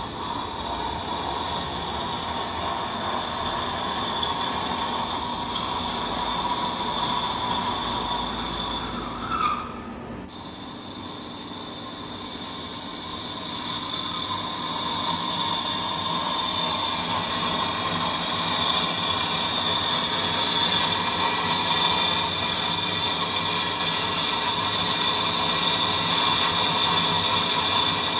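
Large manual lathe turning a thick steel cylinder head at low speed while a boring bar cuts inside its bore, a steady metal-cutting noise with a steady high-pitched tone over it. The sound dips briefly about ten seconds in, then builds louder again.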